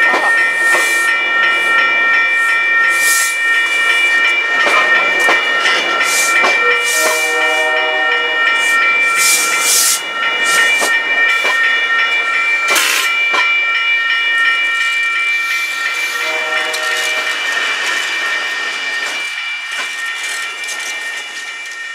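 MBTA commuter rail coaches rolling slowly past at close range with a steady high-pitched wheel squeal, and sharp clicks as the wheels cross rail joints. The sound fades near the end as the locomotive at the rear of the train goes by.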